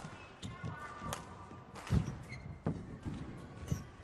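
Badminton rally: several sharp racket strikes on the shuttlecock with players' shoes squeaking and feet thudding on the court mat during fast footwork. The loudest thump comes about two seconds in.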